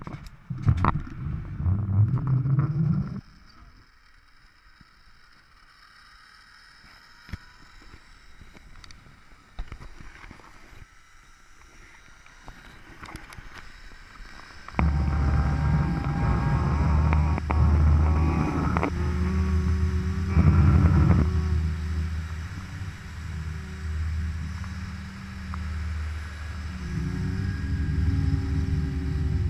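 Zipline trolley pulleys rolling fast along the steel cable: a loud, steady low rumble with a faint whine above it. It comes in suddenly about halfway, after a quieter stretch with scattered clicks, and there is a short loud burst of the same rumble in the first three seconds.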